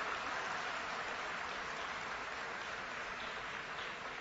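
Audience applauding in a large hall, a steady clatter of many hands that starts to fade near the end.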